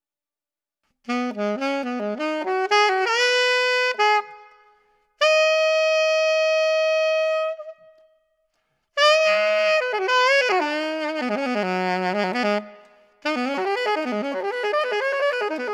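Solo alto saxophone improvising free jazz: after a second of silence, bursts of fast, darting runs broken by short pauses, with one long held note about five seconds in.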